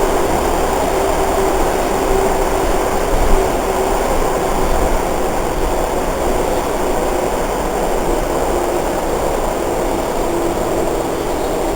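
Budd-built Baltimore Metro subway car running between stations, heard from inside the car: a steady rumble of wheels and running gear with a faint steady tone through it.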